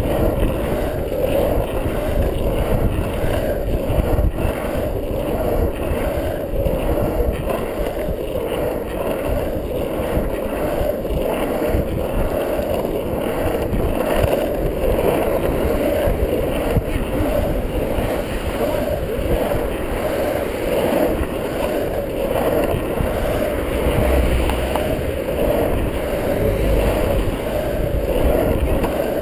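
Longboard wheels rolling steadily over asphalt, a continuous rumbling roll with no breaks.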